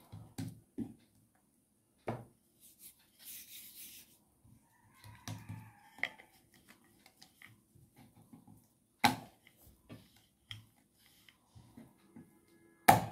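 Dough being pressed flat by hand and rolled out with a wooden rolling pin on a wooden board: faint rubbing and rolling with a few sharp knocks of wood on wood, the two loudest about nine seconds in and just before the end.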